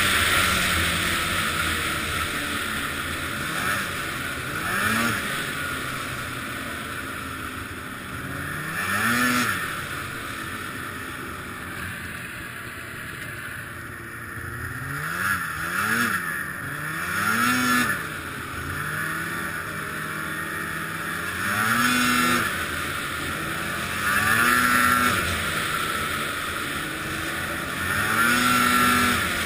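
Arctic Cat ZR 800 snowmobile's two-stroke twin engine being revved again and again, its pitch climbing and dropping back every few seconds, on a machine whose owner suspects bad injectors.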